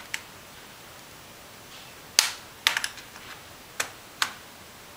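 Sharp plastic clicks as a thin razor blade pries at the retaining tabs along the top edge of an Acer Aspire One 10.1-inch netbook keyboard. About five separate clicks, the loudest a little over two seconds in, followed at once by a quick cluster of smaller ones.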